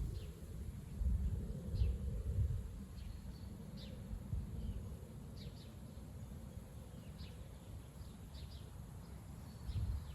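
Strong gusty wind buffeting the microphone as a low, uneven rumble that swells in gusts, strongest in the first few seconds and again near the end. Short high bird chirps sound now and then through it.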